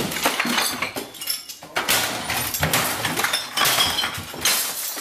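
A dense jumble of clinks and rattles from small hard objects striking one another, with brief ringing tones after some strikes.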